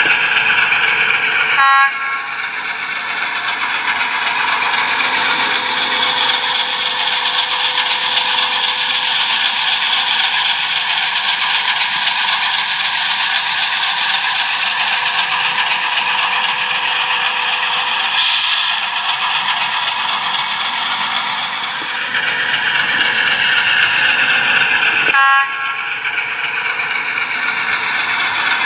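Digital sound decoders in HO model diesel locomotives playing running diesel engine sound, the pitch slowly rising and falling with speed, over the rattle of model train wheels on track. A short horn toot sounds about two seconds in and again near the end.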